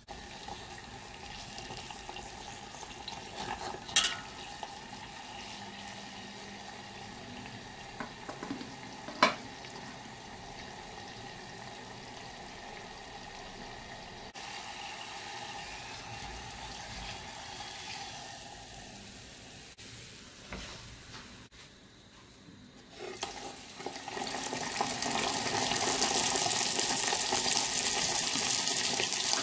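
Yeast-dough donut deep-frying in hot oil in a stainless saucepan: a steady gentle sizzle with two sharp knocks about 4 and 9 seconds in. About three-quarters of the way through, the sizzle grows much louder and busier as a fresh raw donut fries.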